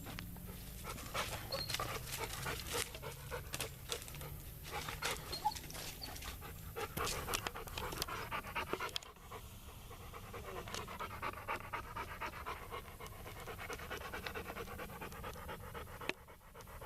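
Dog panting steadily, with sharp crackling clicks over the first half or so.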